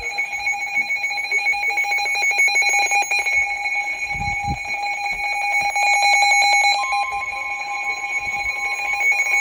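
NOAA Weather Radio alert: a loud electronic alarm of steady tones with a fast pulse running through it. About seven seconds in, a further steady single tone joins it, typical of the 1050 Hz warning alarm tone that comes before a warning is read.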